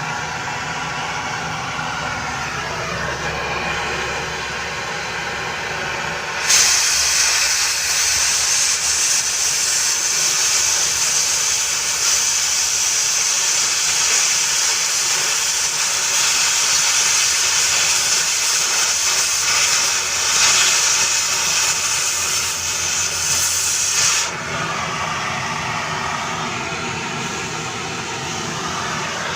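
A power tool cutting through a metal pipe. It runs with a steady whine, and from about six seconds in a loud, even hissing cut takes over for about eighteen seconds before dropping back to the run.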